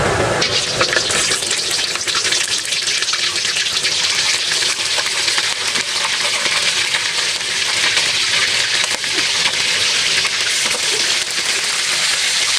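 Pieces of boiled chicken frying in hot oil in a wok over high heat: a steady sizzle with fine crackling, which starts abruptly about half a second in as the chicken goes into the oil.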